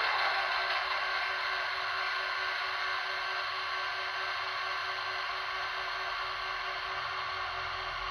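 HO-gauge model electric locomotive running at a crawl on KATO Unitrack: a steady motor whir and hiss with a few faint steady tones, easing off slightly over the first couple of seconds.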